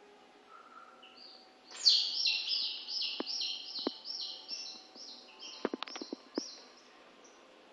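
A domestic chick peeping loudly and rapidly, about three short downward-sliding peeps a second, starting about two seconds in and fading near the end: distress calls as a crocodile monitor seizes it in its jaws. A few sharp clicks sound among the peeps.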